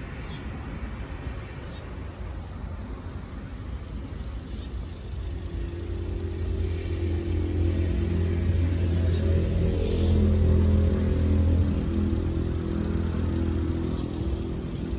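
Road traffic rumbling below, with one motor vehicle's engine growing louder from about five seconds in, passing at its loudest around ten seconds, then fading. A few faint bird chirps.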